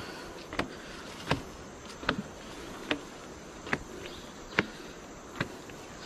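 Footsteps climbing wooden stair treads, a short knock about every 0.8 seconds, over a steady buzz of insects.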